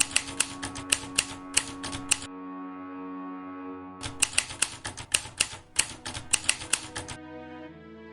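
Background music with sustained tones under runs of sharp, irregular, typewriter-like clicks, several a second, pausing for about two seconds partway through. The music shifts near the end.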